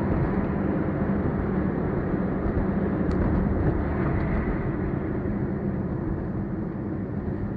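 Steady driving noise of a car on the move: engine and road rumble, low and even, with a faint hum running through it.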